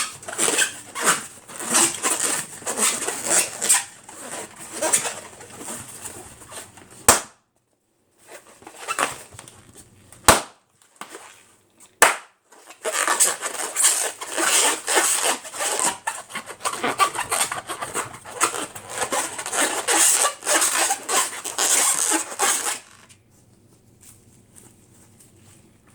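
Rubber party balloons being squeezed and rubbed, giving long stretches of squeaking and crackling, broken by three sharp pops, the first about seven seconds in and the others a few seconds apart. The squeaking stops a few seconds before the end.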